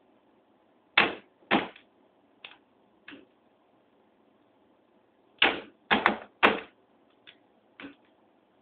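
Bump key being struck into a Sargent 6-pin mortise lock cylinder: about ten sharp metallic taps at an irregular pace, the hardest two about a second in and a quick cluster of three a little past the middle. The cylinder is being bumped to try to jump its pins and open it.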